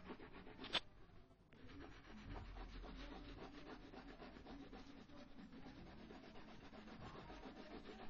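Faint, scratchy rubbing of colouring strokes on paper as a drawing is coloured in by hand, with a single sharp click about a second in.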